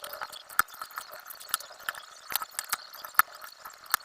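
Irregular small plastic clicks and ticks, a few sharper than the rest, from mechanical keyboard switches being handled and pressed into the keyboard's plate during a switch swap.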